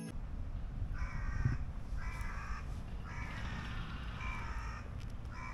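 A crow cawing: a run of harsh caws, about one a second, over a low outdoor rumble.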